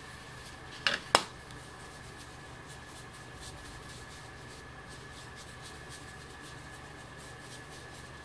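Two sharp clicks about a second in, then the faint, steady scratchy rubbing of a foam blending brush working ink across a plastic stencil, over a steady low room hum with a faint thin whine.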